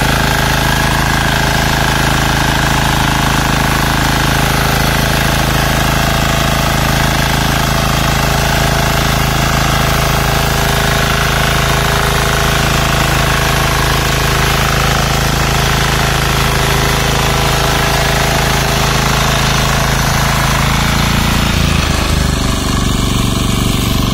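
Texas Alligator 9DPE power weeder's engine running steadily at a constant speed as its rotor churns through a flooded paddy field; its note shifts slightly near the end.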